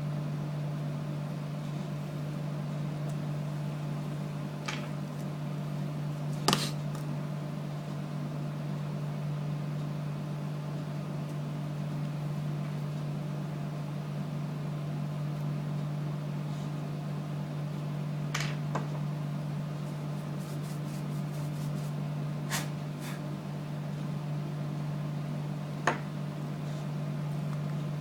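A steady low electrical or machine hum throughout, with a handful of sharp, small clicks and taps from small parts and tools being handled in a phone repair, and a quick run of faint ticks about two-thirds of the way in.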